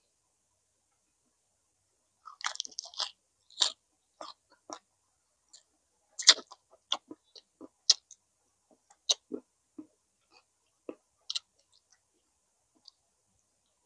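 Eating chicken inasal (grilled chicken) up close: chewing and biting heard as a scatter of short, irregular clicks and crunches, starting about two seconds in.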